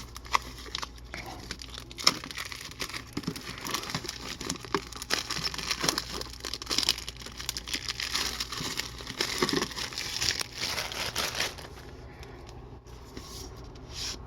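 Plastic wrapping crinkling and tearing as it is pulled off a tin of trading-card packs, with many small sharp crackles; it dies down about twelve seconds in.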